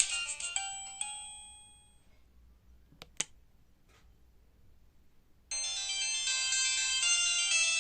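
Alcatel OT-385JA mobile phone playing ringtones through its loudspeaker: one melody's last notes ring out and fade, two sharp clicks follow in the quiet gap, and about five and a half seconds in a new ringtone starts abruptly.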